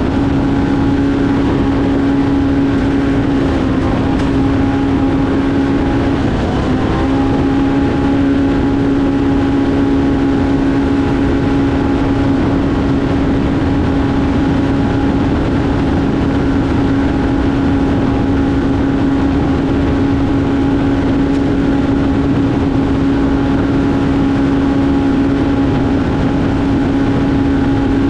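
Polaris Pro R race UTV's engine running at steady high revs, heard from onboard over constant wind and tyre noise. About six seconds in the pitch dips briefly, as the throttle eases and comes back on.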